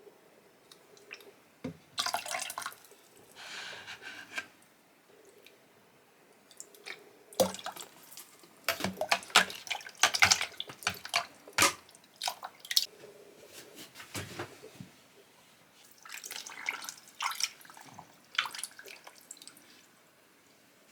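Water dripping and splashing in short, irregular bursts, with small clicks in between. The sound is busiest in the middle.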